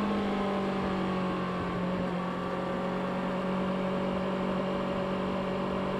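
Stock-exhaust Kawasaki Ninja ZX-6R 636 inline-four engine settling down from a rev in the first second, then idling steadily.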